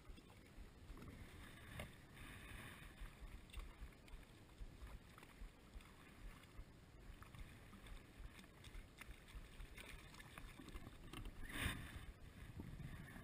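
Faint lapping and sloshing of shallow water close to the microphone, with light wind noise and a short louder swish near the end.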